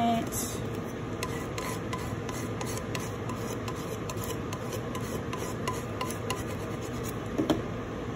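Small plastic scraper and fingertips rubbing over painter's tape on a tumbler, in many short strokes, burnishing a vinyl decal down onto the cup. Near the end come two brief louder knocks.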